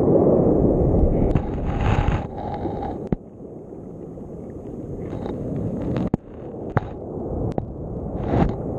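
Muffled churning water heard through a GoPro's waterproof housing lying underwater, loudest in the first three seconds. Several sharp knocks and brief hissy surges run through it as the camera is dragged along the sea bed.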